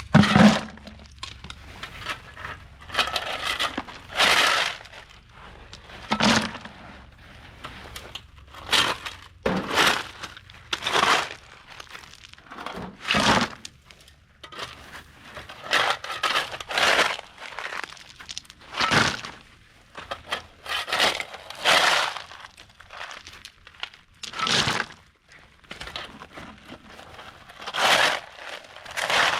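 Loose, crunchy material being scooped up and filled into containers: an irregular series of short crunching scrapes, one every second or two.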